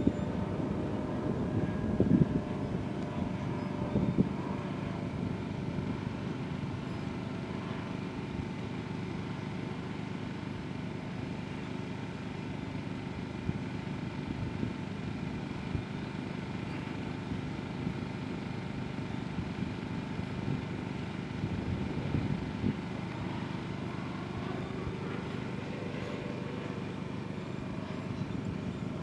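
Distant electric RC aerobatic plane, a Plettenberg Orbit 30-10 motor driving through an Adverrun SingleDrive, its propeller giving a steady faint drone and whine that shifts in pitch as it manoeuvres. A few gusts of wind hit the microphone.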